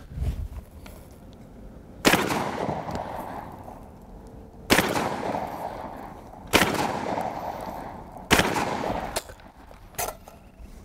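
Four shots from an MKA 1919 semi-automatic 12-gauge shotgun firing slugs, about two seconds apart, each followed by a long rolling echo.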